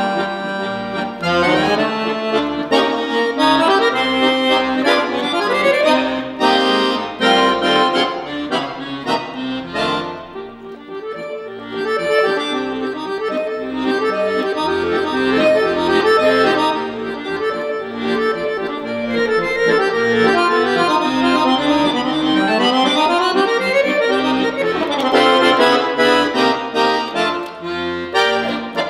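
Piano accordion played solo: fast melodic runs over sustained chords, dropping briefly softer about ten seconds in, with quick sweeping scale runs up and down later on.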